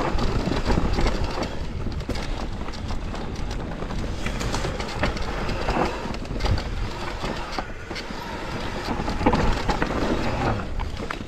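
Enduro mountain bike descending a steep, rough trail: a continuous clatter and rattle of chain, suspension and tyres over rocks and roots, with many sharp knocks, over a steady rush of noise.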